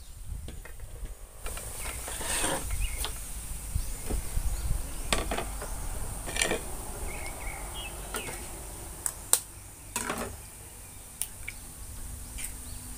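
Light kitchen handling: scattered clicks and knocks of bowls and utensils, with the crack of an egg shell being broken over a bowl near the end. Behind it, a steady high insect drone sets in about a second and a half in.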